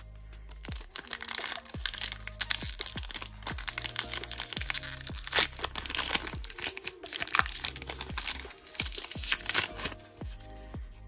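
Foil wrapper of a Pokémon card booster pack being crinkled and torn open by hand, in repeated bursts of crackling that start about a second in and stop just before the end. Background music with a beat plays underneath.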